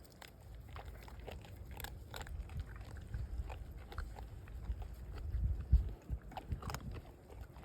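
Animals eating food put out for them: scattered crunching and biting clicks over a low rumble, with a louder low thump about six seconds in.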